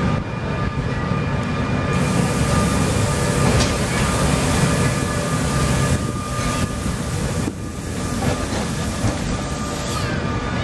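Vintage wooden Sóller electric tram approaching and passing close by, its wheels running on the street rails with a steady rumble and a thin high whine.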